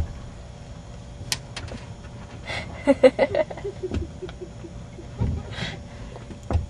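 A woman's short non-word vocal noises close to the microphone, mixed with bumps and clicks from the camera being handled, over a faint steady hum.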